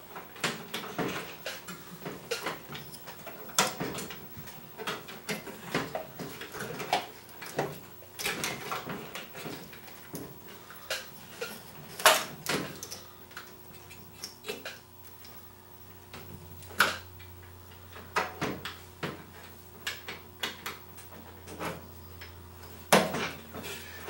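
Plastic wire-harness connectors and wiring being handled and pushed into place inside a microwave oven's cabinet. An irregular string of clicks and knocks, the loudest about halfway through.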